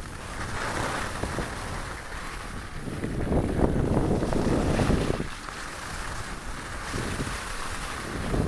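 Wind rushing over the microphone of a camera carried by a downhill skier, mixed with the hiss of skis sliding on packed snow. It swells louder for a couple of seconds in the middle.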